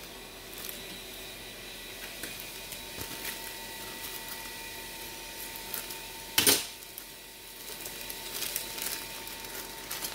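Plastic packaging being handled and crinkled, with one loud sharp cut about six and a half seconds in as scissors go through the black plastic pouch, then more crinkling of the plastic. A faint steady tone sits underneath.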